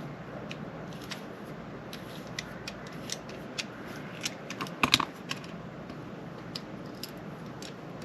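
Light plastic clicks and taps from handling a car phone holder's plastic clip, irregular and scattered, with a louder cluster of clicks about five seconds in.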